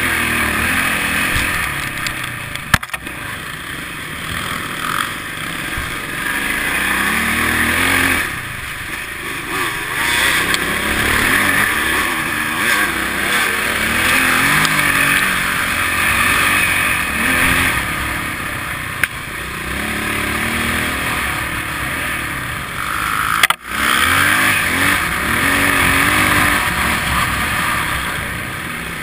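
Enduro dirt bike engine running, heard from the bike itself, its revs rising and falling as it is ridden up a trail. Two sharp knocks, one about three seconds in and one near the end.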